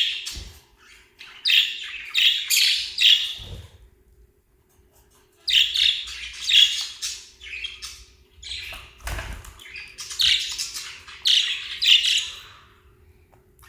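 Small pet parrots such as lovebirds and budgerigars giving shrill, squawking calls in three bursts of several calls each, with short pauses between. There are a few low thumps underneath.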